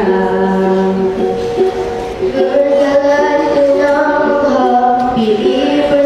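Children singing a song into microphones, holding long notes that step from pitch to pitch.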